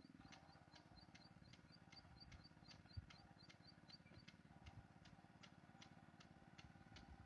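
Near silence, with a faint, regular high ticking about four times a second over a faint low hum.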